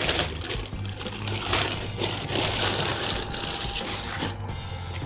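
Plastic wrapping bag crinkling and rustling as a wrapped part is handled and turned over, busiest for the first four seconds, then quieter.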